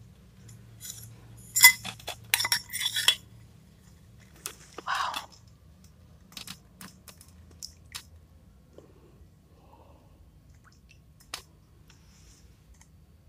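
Metal spoon and glass bowl clinking and tapping as a bowl of chili sambal is picked up and tipped: a cluster of sharp clinks in the first three seconds, another around five seconds in, then only a few faint ticks.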